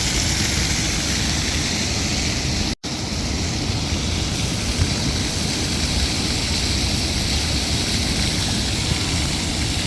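Water fountain splashing, a steady dense rush of falling water. The sound cuts out for an instant about three seconds in.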